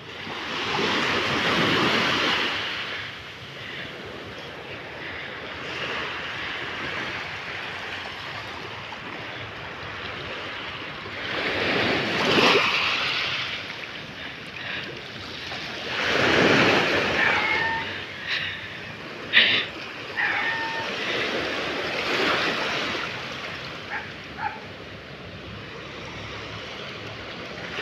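Small waves washing onto a sandy shore, the surf noise swelling and fading every few seconds, with wind on the microphone. A few short sharp clicks come about two-thirds of the way through.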